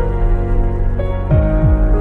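Instrumental passage of a slow romantic Hindi song: held chords and a sustained melody note, with two quick falling bass notes about a second and a half in.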